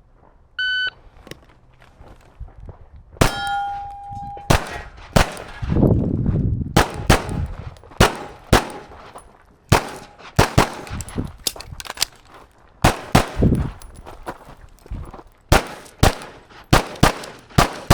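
Shot-timer start beep, followed a few seconds later by a string of about two dozen pistol shots, many fired in quick pairs. A brief ringing tone lingers after the first shot.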